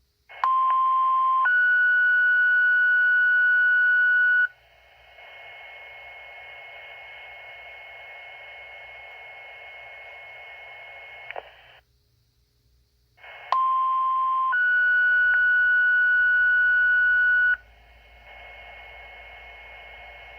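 Two-tone sequential pager alert tones sent twice over a fire dispatch radio channel, the page that precedes a dispatch. Each set is a short lower tone followed by a steady higher tone held about three seconds, then open-channel hiss. The first set's hiss ends in a squelch click.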